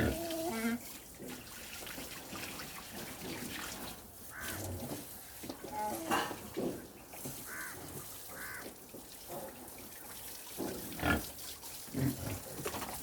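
Pigs grunting, with a few short high squeals, over the steady hiss of running water.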